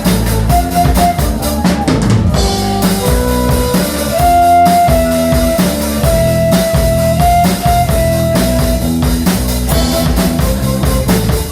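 Live band playing an instrumental passage with no singing: a drum kit keeps a steady beat under held melody notes and changing chords.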